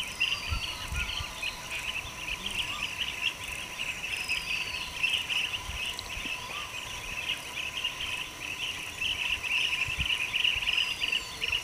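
Steady, pulsing chirr of insects, with a few short descending bird whistles now and then.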